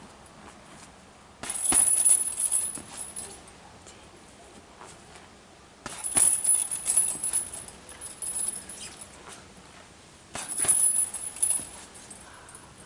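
Three quick flurries of punches on a hanging heavy punching bag, each lasting one to two seconds, the bag's suspension chain jingling and rattling with the hits.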